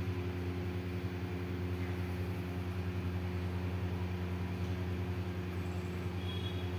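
A steady low mechanical hum from a running motor or machine, holding the same pitch throughout.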